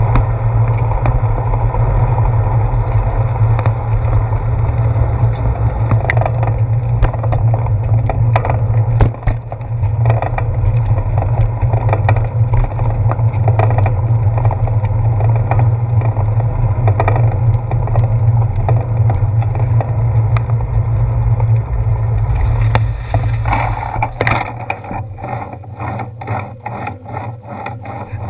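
Wind buffeting a handlebar-mounted GoPro's housing, with the rumble and scattered rattles of a bicycle rolling over pavement. Near the end the wind noise drops and a run of regular ticks, about two or three a second, is heard.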